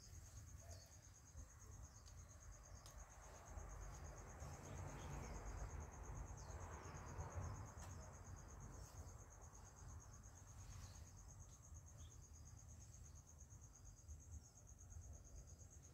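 Faint, steady high-pitched trilling of insects in the garden, with a soft rustle of leaves swelling for a few seconds around the middle.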